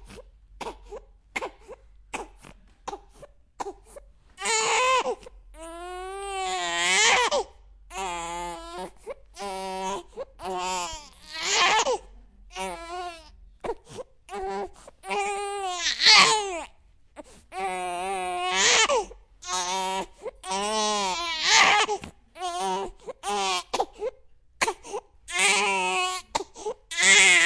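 A baby crying hard: repeated high-pitched wails that waver and break, each a second or two long, with quick gasping breaths between them.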